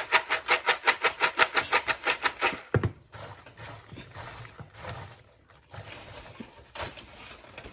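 Popcorn being shaken quickly and rhythmically to coat it with oil and seasoning, about six or seven shakes a second for nearly three seconds. It ends with a thump, followed by softer rustling as the popcorn settles.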